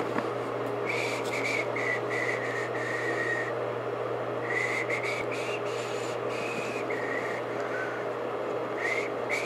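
AC blower motor running under PWM speed control: a steady whir of rushing air over a constant low hum. Short high whistling tones come and go over it, stepping up and down in pitch.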